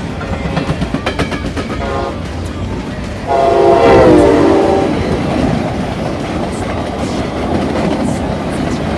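Amtrak Cascades passenger train, led by a Siemens locomotive, passing close at speed. Wheel clicks over the rails at first, then about three seconds in a loud horn blast of a minute and a half or so that drops slightly in pitch as the locomotive goes by. After it comes the steady rush of the passing cars.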